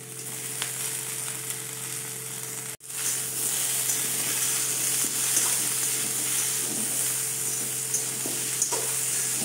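Mixed vegetables sizzling as they fry in a metal kadai on a high flame, while chunks of pumpkin are tipped in and a metal spatula stirs and scrapes through them. The sizzle grows a little louder after a brief cut about three seconds in.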